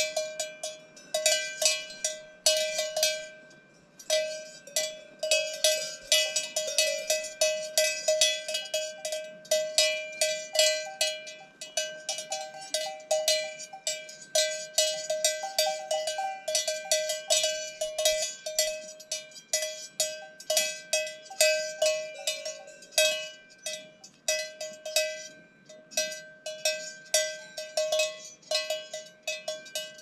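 Cowbells worn by grazing cows clanking irregularly, several strikes a second, their ringing overlapping into a continuous jangle.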